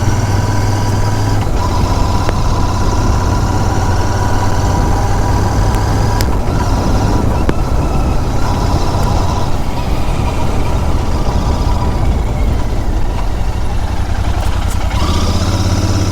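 Royal Enfield Continental GT 650's parallel-twin engine and exhaust running steadily while riding. The engine note changes a little about a second and a half in and again near the end.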